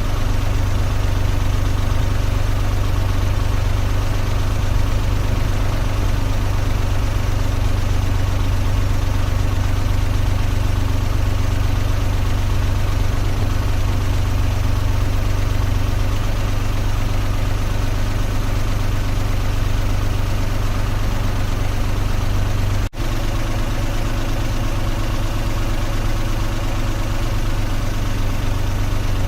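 Car engine idling steadily with a low, even hum, broken by a momentary drop-out about 23 seconds in.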